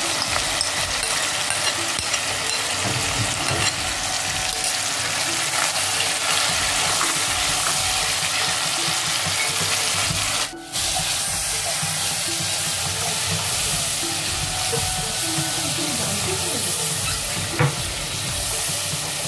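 Onion and tomato paste sizzling and bubbling in hot oil in a steel pot while being stirred with a silicone spatula: the masala base being fried. The frying noise is steady, breaks off for a moment about halfway, and there is a single sharp knock near the end.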